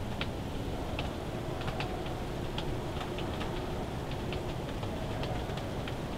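Falling snow ticking lightly and irregularly on the fabric of a ground blind, a few small taps a second, over a steady low rumble of wind.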